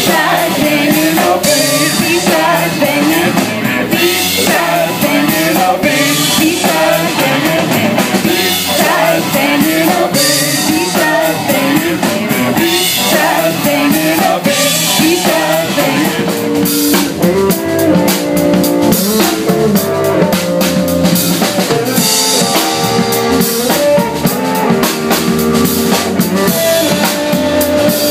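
A live band playing with drum kit, electric bass and electric guitar. About halfway through, the wavering melodic lines give way to longer held notes.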